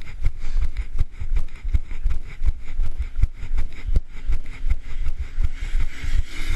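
A runner's footfalls jolting a body-carried camera: steady low thuds about three a second, the rhythm of a jogging stride, with a hiss that grows near the end.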